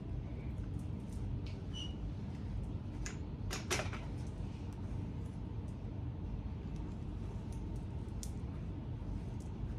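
Steady low room hum with scattered small clicks and a brief clatter about three and a half seconds in, from hairstyling tools being handled while mannequin hair is parted and sectioned.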